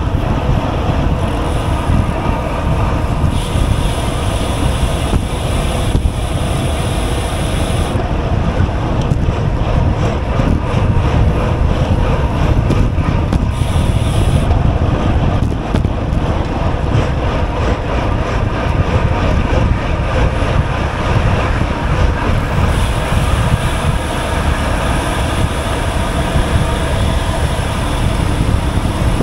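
Wind rushing and buffeting on the GoPro's microphone while the bicycle moves at speed: a loud, steady rumble.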